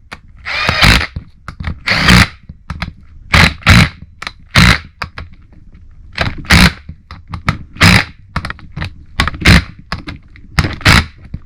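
Repeated short bursts of a tool tightening a fastener on a rebuilt power steering pump, about ten strokes spaced a second or so apart.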